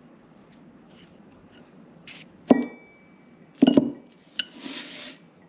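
Metal parts clinking against each other or a hard surface, each strike ringing briefly: one sharp clink about halfway through, a quick double clink a second later, then a click and a short scraping hiss.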